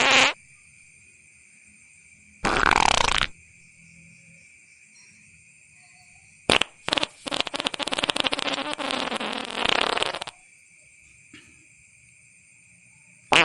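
Steady high chirring of night insects, broken by loud sudden fart-like blasts: a short one about two and a half seconds in, a long fluttering rasp from about seven to ten seconds, and another starting right at the end.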